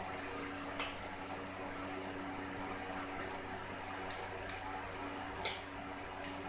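Crispy fried chicken crackling as it is pulled apart by hand: a few short, sharp crunches, the loudest about five and a half seconds in, over a steady background hum.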